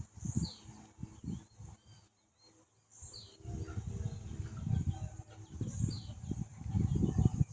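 A bird repeating a short, falling chirp three times, about three seconds apart, over a steady high insect drone. Irregular low rumbling noise comes and goes, dropping out briefly about two seconds in.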